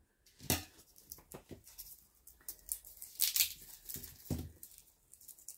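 Garlic being peeled by hand: dry papery skins crackling and tearing in short, irregular crackles, with a couple of soft knocks, about half a second in and again past four seconds.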